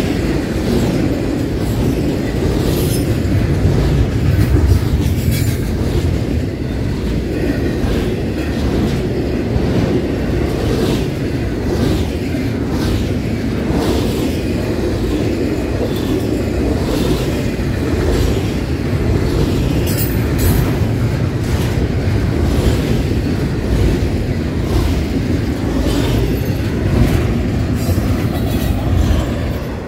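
Train passing with a steady low rumble, its wheels clicking repeatedly over rail joints; the rumble starts to fall away at the very end.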